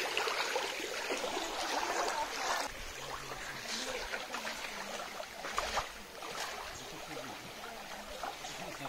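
Small waves lapping at a sandy, pebbly riverbank: a steady gentle wash of water.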